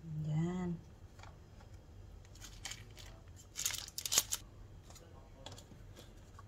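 Paper cupcake cups and a piping bag being handled: scattered light rustles and taps as the cups are picked up and set down on a mat, loudest about three and a half to four and a half seconds in.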